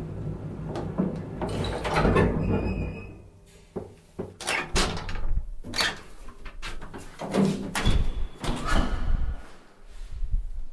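Elevator running and its sliding doors working. A low rumble of the car is followed by a short ding about two and a half seconds in, then a run of clunks, knocks and rattles from the doors.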